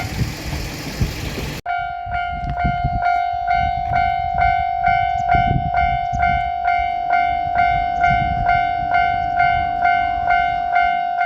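Japanese level-crossing warning bell ringing, about two strikes a second, with a diesel train's low rumble underneath. For the first second and a half only the train's noise is heard; then the sound cuts off abruptly and the bell rings on clearly.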